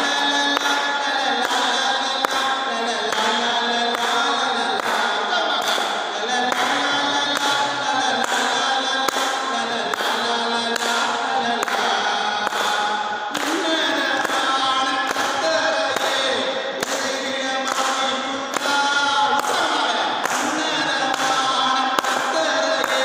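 A man singing a hymn, with a steady beat of about two strokes a second under the voice.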